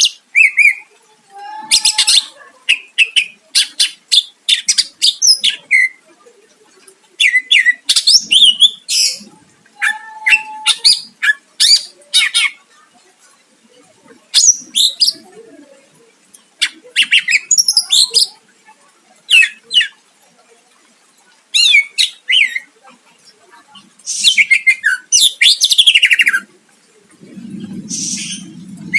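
Green leafbird (cucak ijo) in full song, giving loud bursts of quick chirps, whistles and harsh trills with short pauses between phrases. Near the end, a low rustling rumble under the song.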